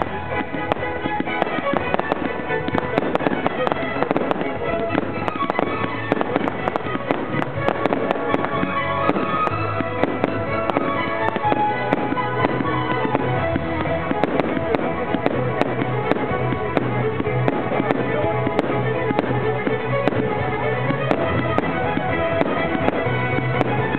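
Fireworks display: shells firing and bursting with crackles in quick, irregular succession, heard over continuous loud music.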